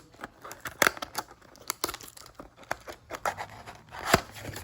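A trading-card box being torn open by hand: packaging tearing and crinkling, with irregular scratches and snaps, the loudest snap about four seconds in.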